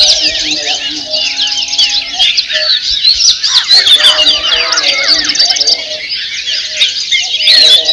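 Dawn chorus of many songbirds chirping and trilling at once: quick, overlapping high-pitched notes and runs that never pause, with a few lower, longer-held notes underneath.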